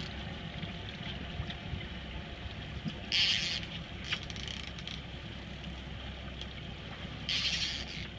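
Twin outboard motors running steadily, with two short hissing bursts, one about three seconds in and one near the end.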